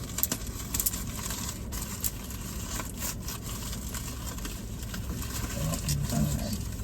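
Paper food wrappers rustling, crinkling and tearing in a handful of short crackles as a sandwich is unwrapped, over the steady low hum of a car's idling engine.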